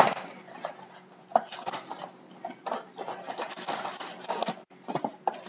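Packaging of a box of trading cards being opened and handled: irregular crinkling and rustling with sharp clicks and snaps.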